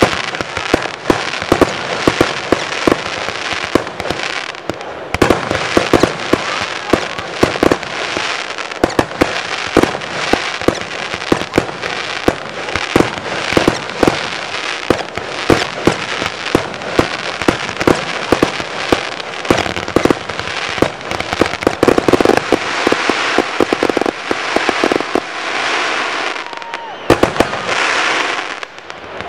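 A barrage of 1.4G consumer aerial fireworks, many launching and bursting in quick succession: rapid overlapping sharp bangs over a steady hiss. The bangs thin out briefly near the end.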